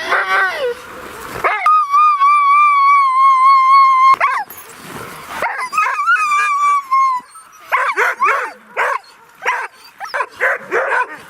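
Sled huskies crying out together: two long, high, wavering howling whines, then a quick run of short yips and barks near the end. This is the excited clamour of a sled team eager to run before setting off.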